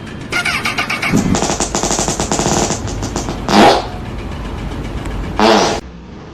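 A small engine, of the kind on a petrol yard tool, running with a fast, dense rattle. Two short loud pitched sounds break in, one about three and a half seconds in and one about five and a half seconds in.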